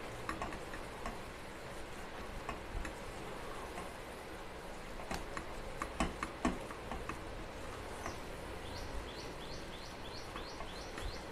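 Silicone spatula stirring and scraping a thick, drying coconut-and-milk sweet mixture in a steel pan, with a few sharper knocks against the pan about halfway through. In the last few seconds a bird chirps repeatedly, about twice a second.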